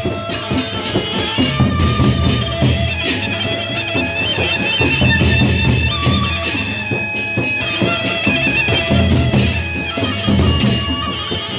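Gendang beleq ensemble playing live. Large barrel drums are beaten with sticks and pairs of hand cymbals clash in a fast, driving rhythm, with ringing metallic tones held over the beat.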